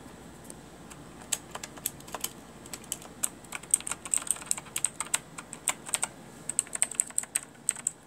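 Redragon Indrah mechanical keyboard with clicky blue switches being pressed: irregular runs of sharp key clicks, sparse for the first second or so, then coming thick and fast in bursts.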